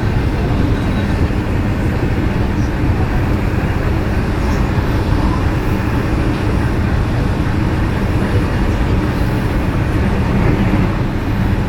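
Meitetsu Panorama Super electric train running at steady speed: an even rumble of wheels on rail and running gear, heard from inside the passenger cabin.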